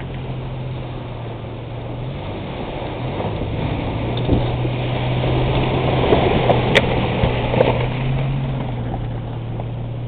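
SUV engine running steadily as the vehicle fords a shallow river, its tyres churning and splashing through the water. The splashing builds to its loudest about six seconds in, with one sharp click, then eases.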